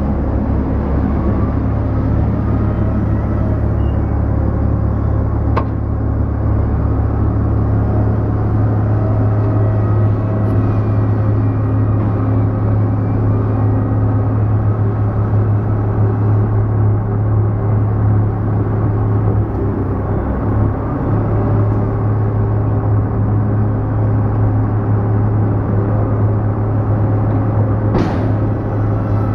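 Steady low rumble of heavy bulk-loading machinery, the ship's deck cranes working grab buckets and a diesel wheel loader, with a sharp knock about six seconds in and a louder one near the end.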